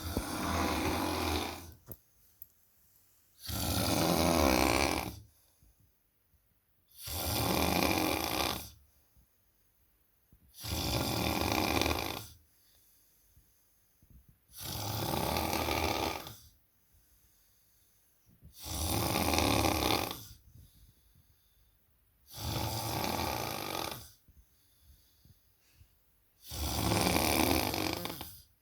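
A man snoring in his sleep: eight long, rasping snores, about one every four seconds, with quiet pauses between them.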